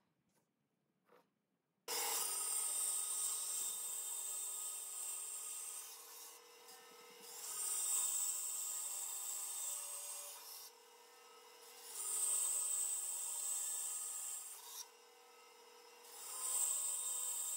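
Bandsaw blade cutting through a thick laminated wood block, starting suddenly about two seconds in. The hissing cut swells four times as the wood is fed and eases back to the saw's steady running hum in between.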